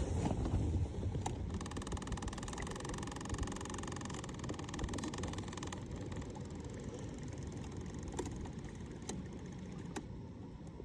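Steady low rumble of wind and water against a kayak, with a fast, finely ticking mechanical whir from about one and a half to six seconds in and a few sharp clicks after it.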